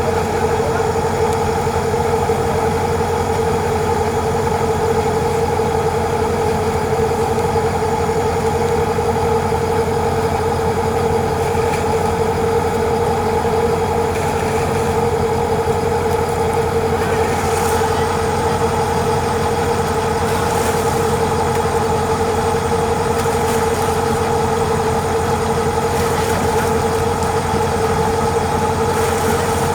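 A machine's engine running steadily at a constant speed, with a hum and a strong, unchanging tone.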